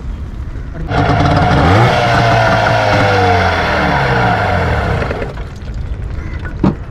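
A small engine comes in suddenly about a second in, revs up, holds, then slowly eases off and fades out. A single sharp knock follows near the end.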